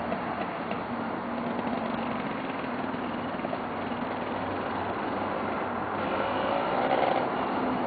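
Quad bike (ATV) engine running as the bike rides off along the road and comes back, its pitch rising and falling with a rev near the end.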